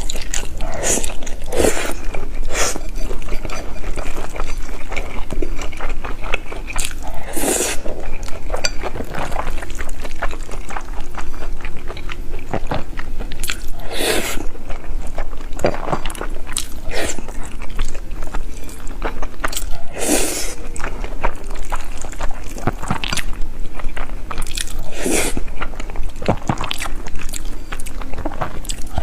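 A person biting and chewing fried egg close to the microphone, in irregular mouthfuls with a few louder bites, over a steady low hum.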